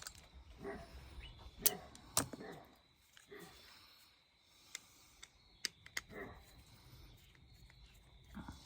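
Sharp, scattered clicks and snaps of hand tools cutting and stripping electrical cable wires, with a few faint low murmurs between them.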